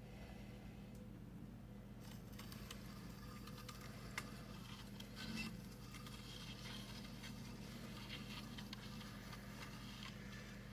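JVC QL-Y5F direct-drive turntable running, with a faint steady hum. From about two seconds in come light crackling and ticking, with one sharp click about four seconds in.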